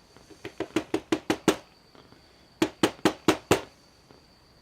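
Two quick runs of sharp taps, about seven and then five, as a padlock's lock cylinder is knocked against a hard surface to shake its pins out.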